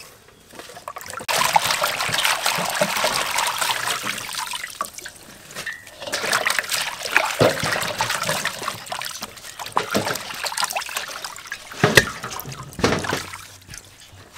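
Water sloshing and splashing as hands wash leafy greens in a stainless-steel bowl of water, in two long stretches with a sharp knock near the end.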